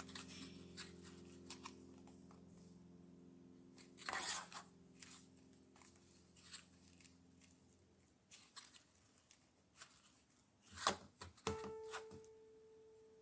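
Quiet handling of craft materials: scattered light taps and clicks with a few short rustles, the loudest about four seconds in and about eleven seconds in.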